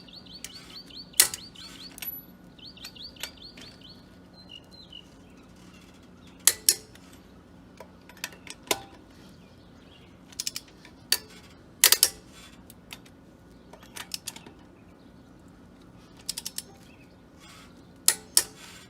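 Click-type 1/2-inch drive torque wrench ratcheting and clicking as wheel lug nuts are torqued down, with sharp loud clicks spread unevenly through. Birds chirp during the first few seconds.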